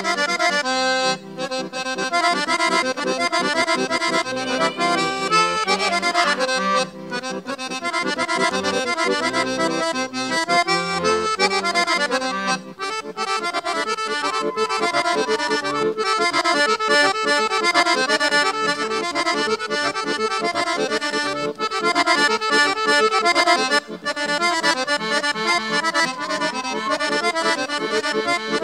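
Accordion playing a lively Bulgarian folk dance tune for a horo, in a steady, even rhythm.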